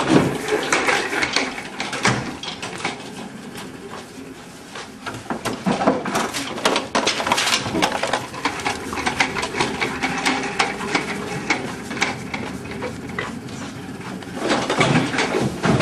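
Wheeled office chair rolling over a hard floor: its casters and frame rattle and clatter, with a dense run of irregular clicks and knocks as it is pushed along.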